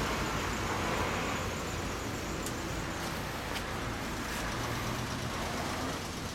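Steady motor-vehicle noise: a low engine hum under an even hiss, with two faint clicks in the middle.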